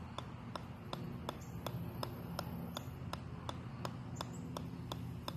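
Golf ball bouncing again and again off the head of a 4-pound sledgehammer, a sharp click at each hit, about three a second in a steady rhythm.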